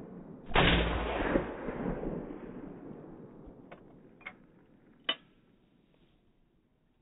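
A single shot from a CZ 912 semi-automatic 12-gauge shotgun: a sudden loud blast that fades slowly over a few seconds. Three short sharp clicks follow near the end.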